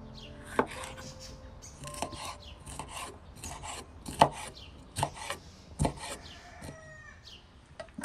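Large kitchen knife slicing raw red bell peppers on a wooden cutting board: crisp, irregular cutting strokes with sharp knocks of the blade on the board, the loudest about four seconds in.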